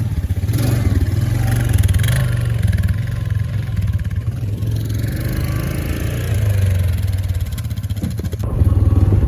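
Quad (ATV) engine running while being ridden, a steady low drone that gets louder shortly before the end.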